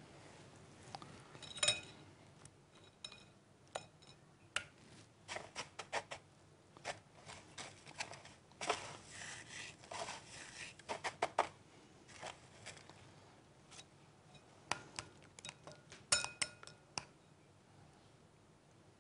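Light clinks, taps and scrapes of hands and utensils against a glass mixing bowl and dishes as thin slices of meat are dipped in egg and pressed into breadcrumbs. There are a couple of brighter ringing clinks, about two seconds in and again near the end.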